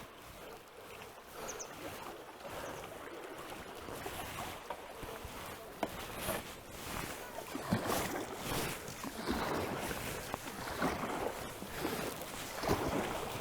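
Kayak paddle strokes splashing in fast river current, with water rushing around the boat; the splashing grows louder and more frequent about halfway through.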